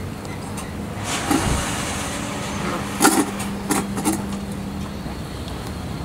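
Young lion cub chewing and biting at a leather army boot, with a few short sharp noises bunched together in the middle, over a steady low rumble.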